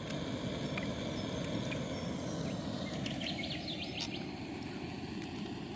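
Portable gas canister stove burning steadily under a cooking pot: an even, low rushing noise.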